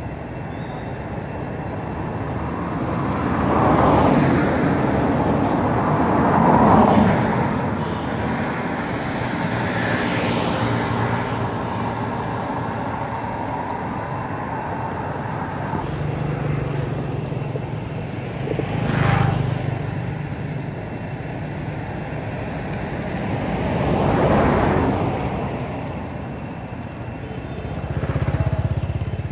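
Road traffic: vehicles passing one after another on a nearby road. About five passes can be heard, each swelling up and fading away over a steady engine hum.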